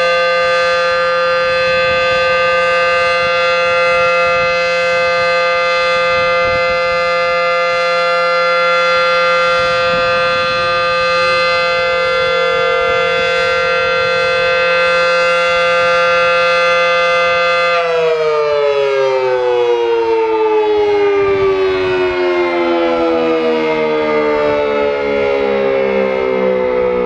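Federal Signal Model 5 outdoor warning siren sounding a steady chord-like alert tone during its monthly test. About two-thirds of the way in it begins to wind down, the pitch sliding steadily lower as the alert cycle ends.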